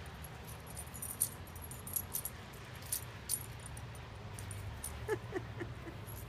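A puppy's metal collar tags jingling in small clinks as it jumps and snaps at snowflakes, then four short falling whimpers from the dog a little over five seconds in.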